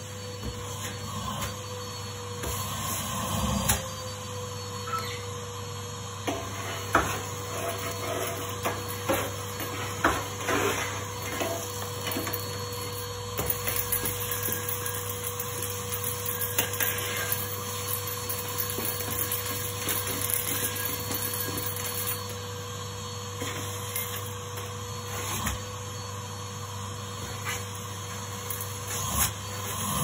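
Numatic Henry vacuum cleaner running steadily, a constant motor hum with a held tone. Scattered knocks and clicks of the metal wand and hose being handled.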